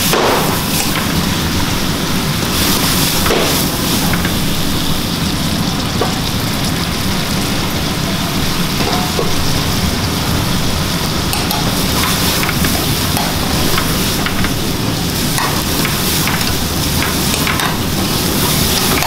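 Meat and vegetables sizzling in a wok over a strong gas burner flame, a steady loud hiss over the burner's low rumble. A metal ladle stirring the wok gives a few short scrapes and knocks.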